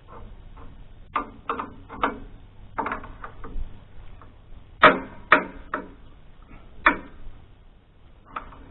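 Irregular metallic clanks and clicks of a wrench working a stubborn, cross-threaded belt-tensioner turnbuckle on a sawmill, a few spaced knocks with the loudest near the middle. A low steady hum runs underneath.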